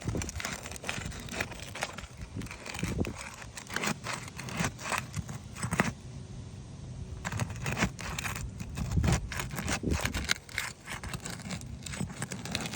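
Irregular scraping, clicking and crackling of roof shingles being pried loose with a snake tool and roofing hammer, with a short lull about six seconds in.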